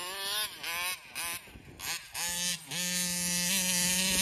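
Taylor 35cc reed-valve two-stroke engine in an RC car, revving in short throttle blips, its pitch dipping and swooping back up several times. It goes quiet for about half a second in the middle, then runs more steadily near the end.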